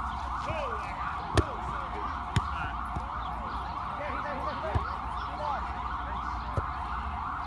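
Emergency vehicle siren in yelp mode, sweeping rapidly up and down without pause. Three sharp smacks of a volleyball being hit cut through it, the loudest about a second and a half in.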